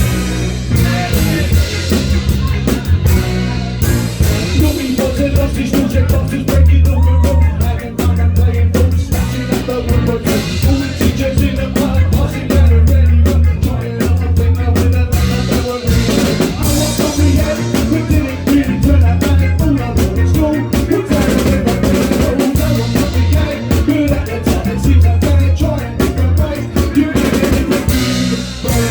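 A live soul band playing an upbeat song, with the drum kit's snare and bass drum prominent over strong low bass notes.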